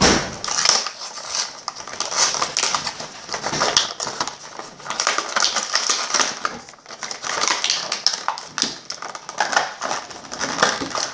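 Toy packaging being pulled and worked open by hand: a dense, irregular run of crackling, rustling and clicking as the ornament is freed from its box.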